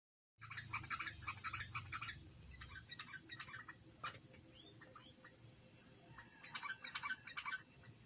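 Yellow-vented bulbuls calling: a fast run of short chirps right at the start, a quieter run a couple of seconds later, and another loud run near the end.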